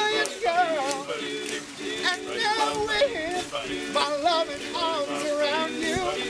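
Male a cappella group singing: a lead voice slides through wavering ad-lib runs over chords held by the backing singers.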